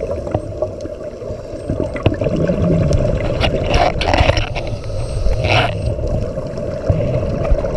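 Underwater audio from a camera with scuba divers: a steady muffled low rumble, with a diver's exhaled bubbles gurgling out of the regulator in two bursts, about three and a half seconds in and again around five and a half seconds.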